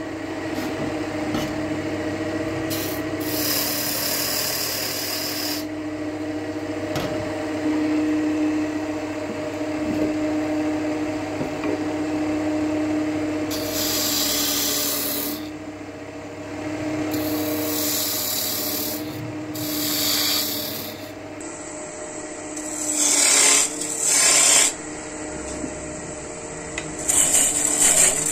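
Wood lathe running with a steady motor hum while a turning tool scrapes across the spinning wood in repeated passes of a second or two each.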